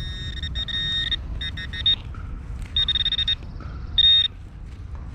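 Metal detector target tones: high-pitched electronic beeps in four bursts, some held and some rapidly pulsing. A steady low rumble lies underneath.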